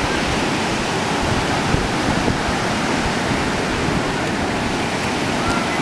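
Ocean surf washing in at the shoreline: a steady rush of breaking waves.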